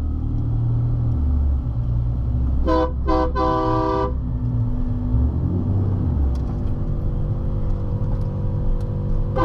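Ram pickup truck's horn honked three times: two short toots and then a longer one, heard from inside the cab over the steady low drone of the engine and road.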